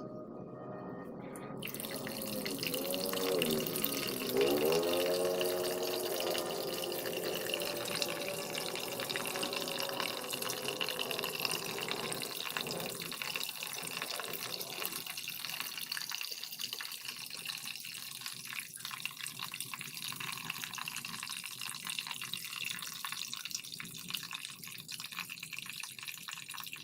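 Water running and splashing steadily, with a brief wavering, gliding tone about three to five seconds in.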